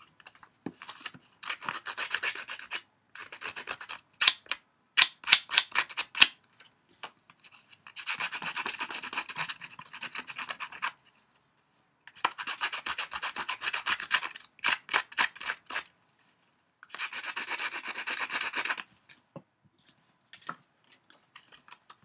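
Prima distressing tool's razor blade scraping along paper edges to fray them: a series of raspy strokes lasting one to three seconds each, with a run of quick, short scrapes about four to six seconds in.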